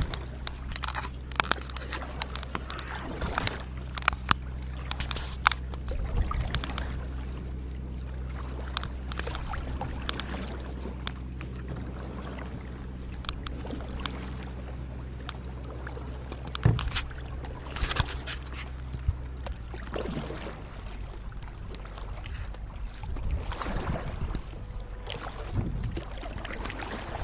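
Sit-on-top kayak being paddled one-handed: the paddle dips and splashes in the water, with sharp irregular knocks and clicks of the paddle against the hull, thickest in the first few seconds and again past the middle. A steady low rumble runs underneath.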